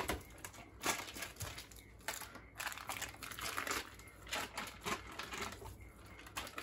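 Foil wrapper of a block of cream cheese crinkling as it is peeled off by hand, in irregular crackles.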